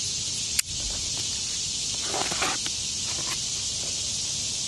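A sharp click about half a second in, then scattered rustling and scraping as a cardboard box is cut open with a knife, over a steady high hiss.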